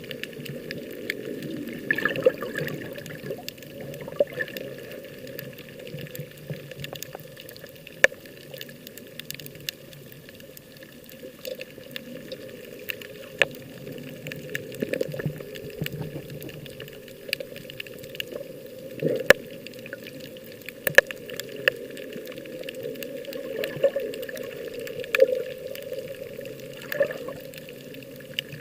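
Seawater sloshing and gurgling, with sharp clicks scattered through it.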